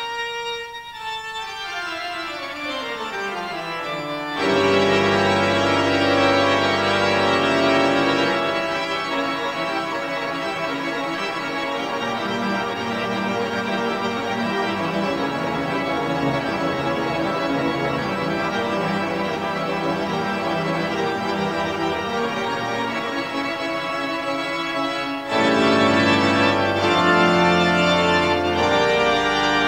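Organ music playing sustained chords, with a fuller, louder passage coming in abruptly about four seconds in and again near the end.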